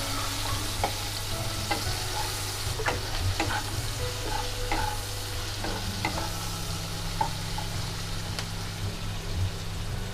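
Chopped onions sizzling in hot oil as they are stirred, with irregular scrapes and taps of the spatula against the pan and a steady low hum underneath.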